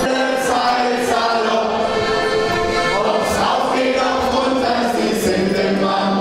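A crowd of people singing a song together, with accordion accompaniment.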